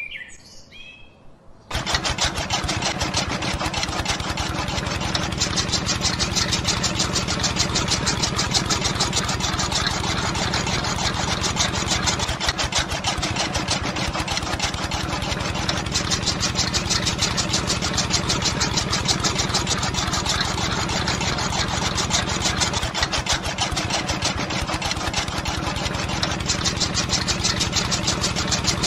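A small engine of a homemade mini tractor running steadily with a fast, even pulse; it cuts in abruptly about two seconds in, after a few faint bird chirps.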